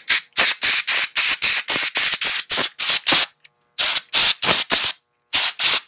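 Can of compressed-air duster fired in rapid short bursts of hiss, about three a second with two brief pauses, blowing thread out from between the keys of a keyboard.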